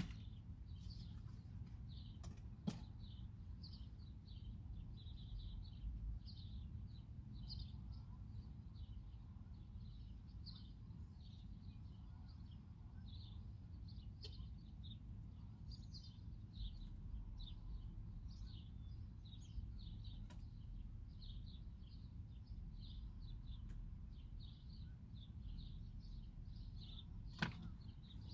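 A steady series of short, high chirps, a little over two a second, over a low background rumble. There are two sharp knocks a couple of seconds in and another near the end.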